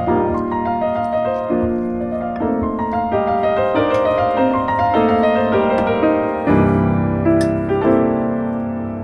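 Background music: a gentle solo piano piece, with notes changing about every half second and a fuller, deeper chord entering about six and a half seconds in.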